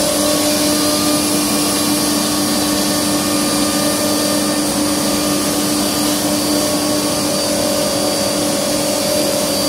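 Piranha ATC 1325 CNC router's spindle cutting through an MDF sheet, its dust extraction drawing air through the hose at the cutting head. A steady whine of several tones over an even rushing noise, unchanged throughout.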